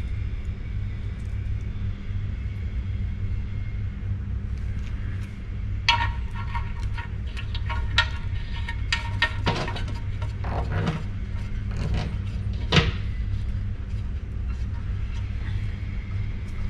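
Small metal parts clinking and tapping as they are handled on an intake manifold, a cluster of light clinks in the middle and one sharper tap about three-quarters of the way through, over a steady low hum.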